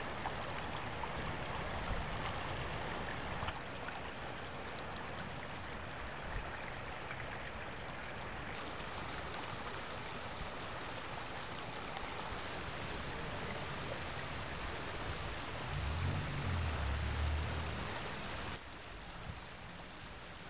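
Rainwater running over a flooded street and along a curb, with rain falling. The water noise shifts in tone a few times, and a low rumble swells for about two seconds near the end.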